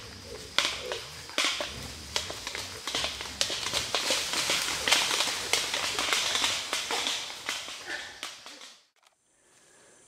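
Dense crackling and rustling of dry leaf litter and twigs being trodden, swelling towards the middle, with a few low grunts in the first couple of seconds. It cuts off suddenly near the end, leaving a faint steady high tone.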